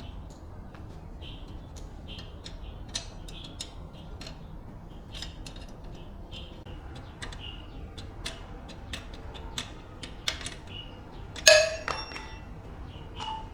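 Irregular metallic taps and clicks of metal parts being handled, with one loud ringing clang about eleven and a half seconds in. Small birds chirp repeatedly in the background.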